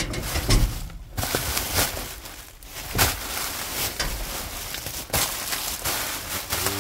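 Rummaging through a dumpster: continuous rustling and crinkling of bags and packaging, with several sharp knocks and crunches as items are shifted.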